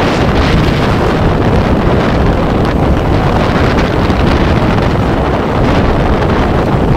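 Loud, steady wind noise buffeting the microphone while riding pillion on a moving scooter, with the road and engine rumble underneath.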